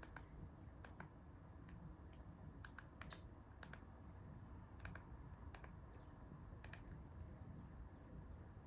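About a dozen small plastic clicks at uneven intervals: the buttons of a TV remote being pressed to scroll through a menu, in a near-silent room.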